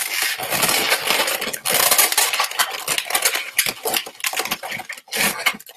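Latex 260 twisting balloons squeaking and rubbing against each other and against the hands as the tip of one is fed through a pinch twist. A dense, crackly run of squeaks and rubbing that goes on almost without a break.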